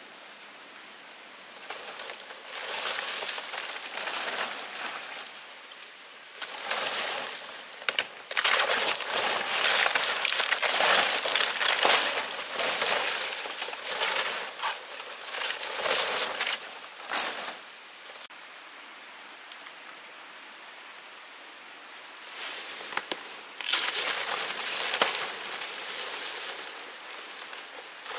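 Dry leaves rustling and crunching as they are handled, in uneven bursts. The loudest stretch is in the middle, followed by a few quieter seconds and then another burst near the end.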